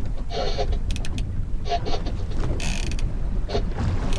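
Fishing reel's drag buzzing in short bursts as a big fish pulls line off against it, with a few sharp clicks between the bursts.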